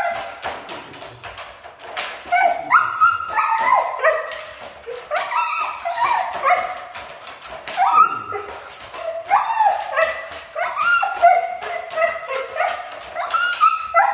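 Siberian husky shut in a wire crate whining and yipping: high cries that rise and fall, coming in groups every second or two, with frequent short clicks among them.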